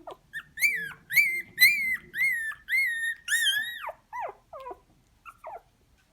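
Three-week-old puppy crying: a run of about six high-pitched whining cries in the first four seconds, about two a second, then a few shorter, fainter whimpers.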